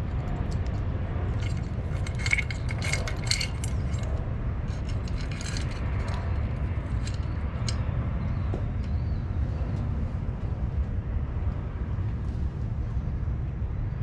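Light metallic clinks and jingles of small hardware and hand tools being handled, clustered in the first half and sparser later, over a steady low rumble.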